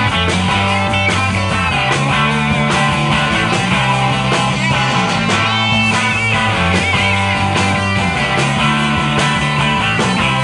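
Live rock band playing: electric guitars, bass guitar and a drum kit, with a steady drum beat and bass notes that change every second or two.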